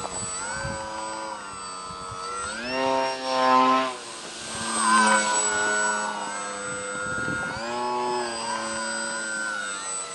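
Grayson Hobby GH2217-09 brushless motor spinning a 10x5 propeller on a foam-board RC plane in flight, its pitch rising and falling as the throttle is worked. It swells louder twice near the middle as the plane passes close.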